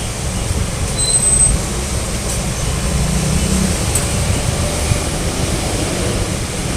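Steady low rumbling rush of an illuminated water fountain's jets, with no music.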